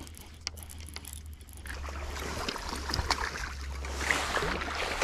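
A hooked smallmouth bass being brought alongside a boat and netted: rustling and splashing that build from about two seconds in, with a few sharp clicks, over a steady low hum.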